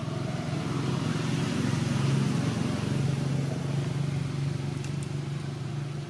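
A motor vehicle's engine running with a low, steady hum that grows louder over the first two seconds and then slowly fades.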